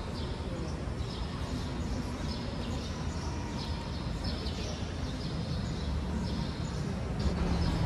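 Small birds chirping repeatedly in short high calls over a steady low background rumble.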